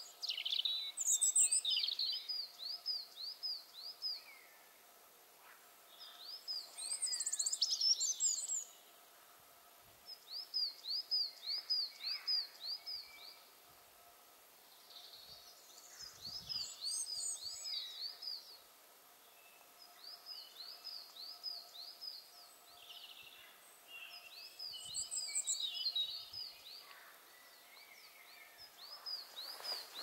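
Several small woodland songbirds singing. One repeats a phrase of about six to eight evenly spaced, arching high notes every few seconds, while others add shorter, higher calls in between.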